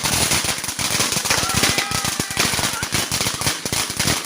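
Fireworks crackling: a dense, rapid run of sharp pops and cracks with no break.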